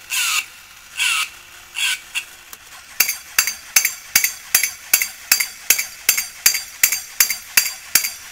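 Cymbal-clapping toy chimp (Daishin Musical Jolly Chimp) squealing three times with a falling pitch, then, from about three seconds in, clashing its small cymbals steadily at about two and a half clashes a second, each clash ringing briefly.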